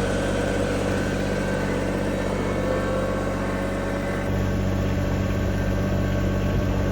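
An engine running steadily at an even speed, with a faint whine slowly rising in pitch over it.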